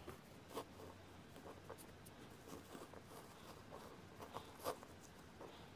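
Faint handling sounds of a tomato being moved and pressed against bare toes on a plastic cutting board: soft rubbing with scattered light taps, two of them a little louder, about half a second in and again near the end.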